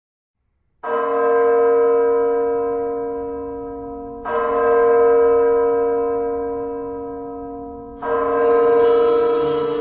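Bell tones at the start of a music track: three deep strikes about three and a half seconds apart, each ringing on and slowly fading, with higher notes joining near the end.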